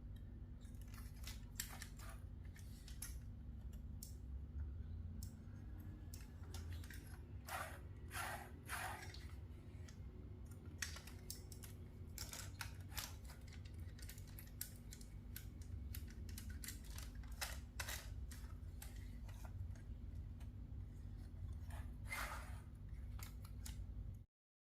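Concrete mixer truck engine running with a steady low hum, with irregular clicks and scraping noises on top.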